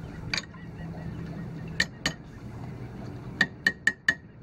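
Sharp metal-on-metal taps, each with a short ring: a metal tool knocking a shackle down onto the stainless steel tube of a boat's rudder cassette. A few spaced strikes, then a quick run of four near the end.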